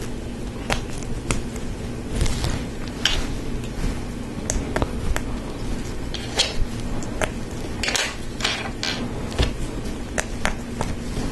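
Plastic Lego Technic pieces clicking and clattering as they are handled and pressed together: irregular sharp clicks with a few short scraping rustles, over a steady low hum.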